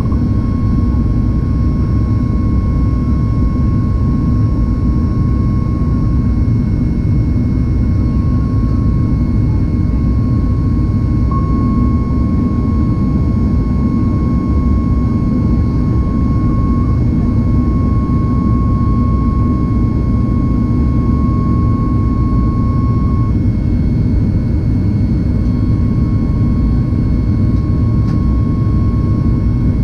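Boeing 737 MAX cabin noise in the climb after takeoff: steady jet-engine and airflow noise from the CFM LEAP-1B engines, heard from a window seat by the wing. A thin, steady high whine sits over it and fades in and out, dropping away for a couple of seconds about three-quarters of the way through.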